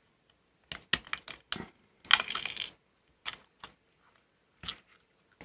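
Small clicks and snaps of a Thunderbolt NVMe drive enclosure's case being pried open by hand, with a louder scraping slide about two seconds in as the lid comes away, then a few light taps as the two halves are handled.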